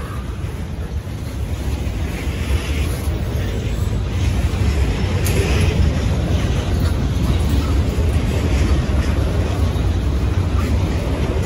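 Freight train boxcars rolling past at close range: a steady low rumble of wheels on the rails, growing a little louder about halfway through.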